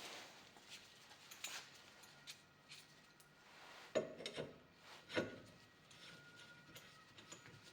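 Faint clicks and rubbing of a hand tool being fitted to a bicycle fork to straighten it, with two louder knocks about four and five seconds in.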